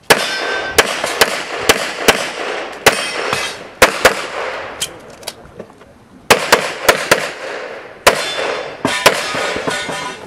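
Rapid pistol fire on a practical shooting stage: a string of about eight shots, a lull of about two seconds, then two more quick strings, each crack followed by echo.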